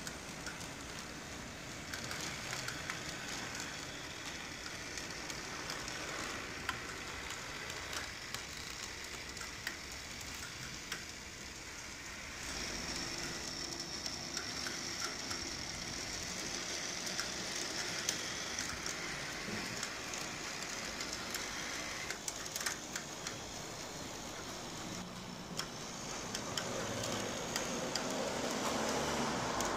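HO-scale model streetcars running on a layout under live overhead wire: a steady crackle from wheels on the rails and trolley poles sliding along the wire, with many small clicks. A thin high whine comes in for a few seconds in the middle, and the sound grows louder near the end as a car passes close.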